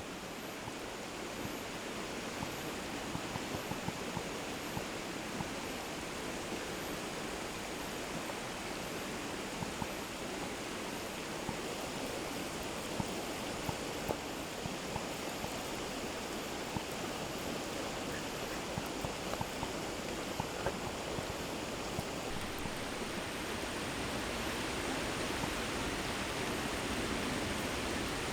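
Wood campfire crackling, with irregular small pops over a steady hiss.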